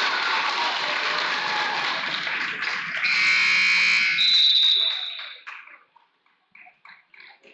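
Gym crowd cheering and shouting loudly. About three seconds in a steady electronic scoreboard horn sounds over it. It all dies away about five and a half seconds in.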